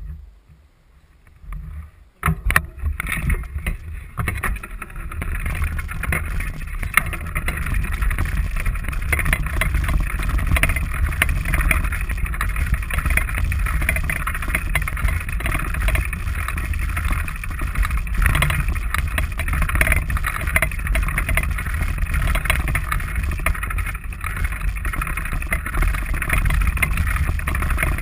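Steady rumble and rushing noise of a moving bicycle: wind buffeting the microphone of a camera mounted on the bike, and tyres rolling over a grass and dirt track. It starts about two seconds in.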